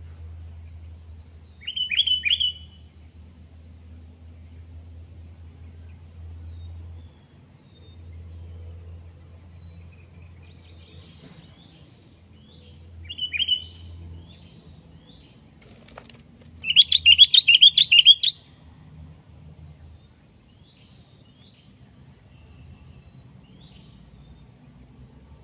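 Sooty-headed bulbul (kutilang) calling in short bursts of quick chirps: one about two seconds in, another near the middle, and a louder, longer run of rapid notes a little later, with faint calls in between.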